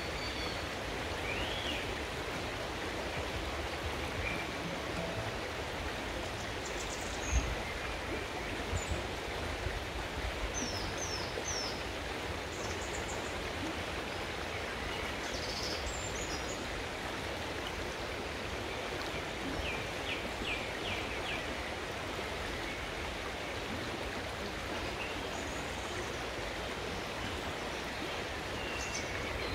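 Shallow river running over pebbles: a steady rushing. Small songbirds chirp now and then above it, including a quick run of notes about twenty seconds in. There is a brief low thump about seven seconds in.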